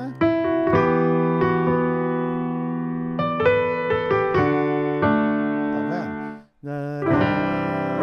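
Piano sound played on a keyboard: sustained chords changing every second or so, falling silent briefly about six and a half seconds in before a new chord starts.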